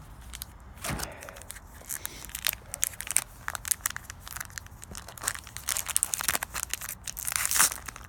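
Crinkling and tearing of a trading-card pack's wrapper as it is ripped open by hand, a dense run of irregular crackles, loudest near the end. The wrapper tears raggedly.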